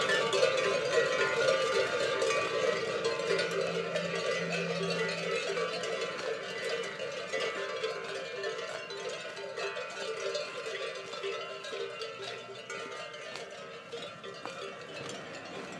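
Bells on a herd of cows jangling and clanking as the cattle move about the pasture. The ringing grows steadily fainter.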